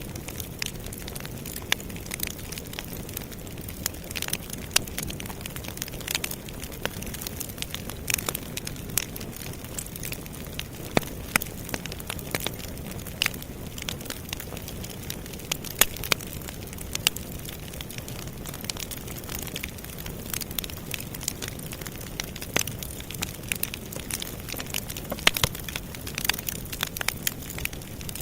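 Campfire burning with a steady low rumble and irregular sharp crackles and pops, several a second.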